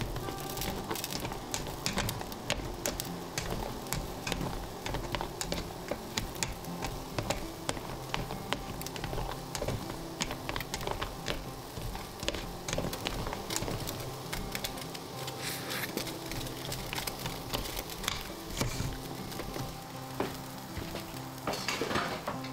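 A plastic spatula stirs rice in a perforated stainless steel steamer basket over steam on high heat, making many irregular scrapes and taps against the metal over a steady hiss. Near the end there is a short, louder rush of hissing.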